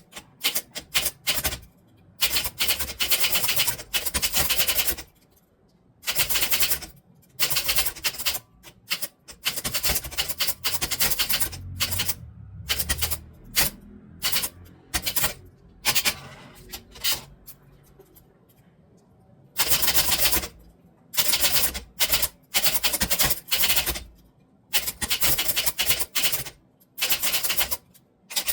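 Typewriter being typed on: fast runs of key strikes in bursts of a few seconds, with a longer pause about two-thirds of the way through.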